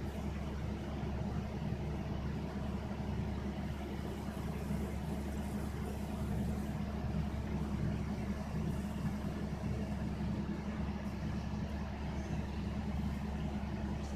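Steady low mechanical hum with a constant background noise, unchanging throughout.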